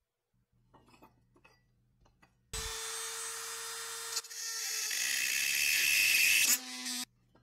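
Handheld rotary tool with a small burr bit switches on with a steady whine, then grinds at the rusted steel tab of a pressed-steel toy car body, getting louder as it bites. Near the end the motor winds down and stops.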